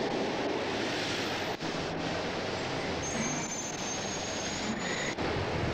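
Street traffic with a tram running by: a steady rumbling noise, with a faint, thin high-pitched squeal for a couple of seconds past the middle.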